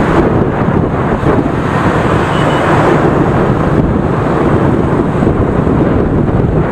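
Steady rush of wind on the microphone while riding in dense motorbike and scooter traffic, with engine and road noise underneath; the noise is loud and continuous.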